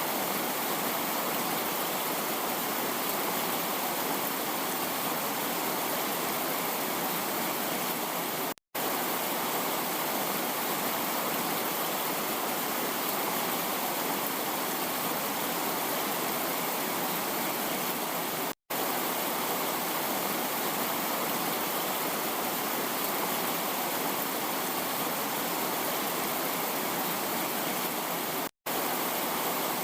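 Heavy rain falling steadily, an even dense hiss, cut three times by a split-second dropout about ten seconds apart.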